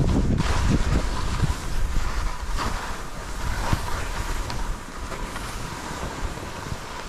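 Wind buffeting the microphone: a steady rushing noise with a heavy, gusting low rumble that eases somewhat after the middle.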